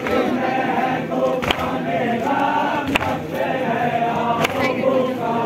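A crowd of men chanting together in unison, with a sharp beat about every second and a half keeping time.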